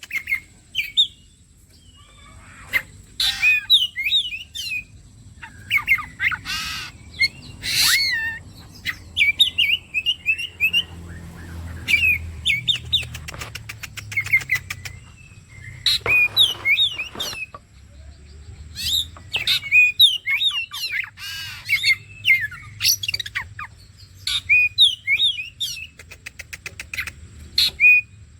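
Oriental magpie-robin (kacer) singing continuously: loud, varied whistled phrases broken by fast clicking rattles. This is the full, nonstop 'gacor' song used as a lure to set other kacer singing.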